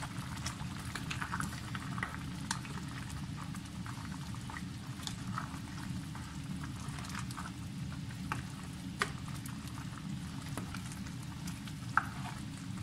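Pot of soup broth with chicken and napa cabbage simmering: steady bubbling with many small scattered pops over a low hum, as it is stirred with a spatula, with a couple of sharper clicks near the end.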